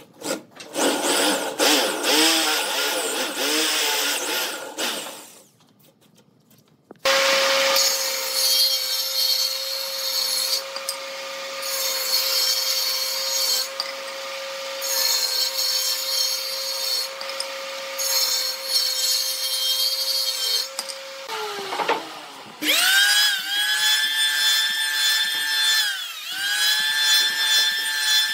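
A hand drill with a Forstner bit boring into pine, then a short pause. A table saw runs with a steady hum while a board is fed through. Near the end an electric hand planer spins up with a rising whine and shaves a pine strip, stopping briefly and spinning up again.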